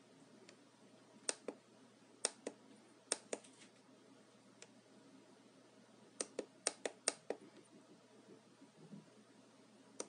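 Small push-buttons on an Eachine VR D2 Pro FPV headset clicking as its menus are stepped through: a few clicks in pairs, then a quicker run of about six clicks around two-thirds of the way in, and one more pair near the end.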